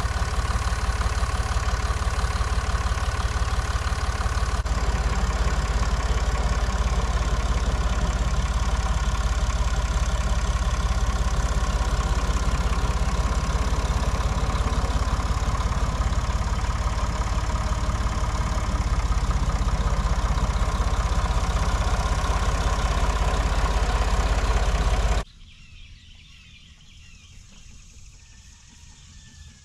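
Tractor engine running steadily at a constant speed, then cutting off abruptly about 25 seconds in. Faint bird chirps follow.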